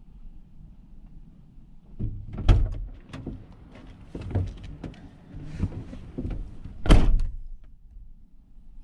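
Vehicle door opened and shut, with loud thunks about two and a half seconds in and again near seven seconds, and knocks and rattles of gear being handled in between.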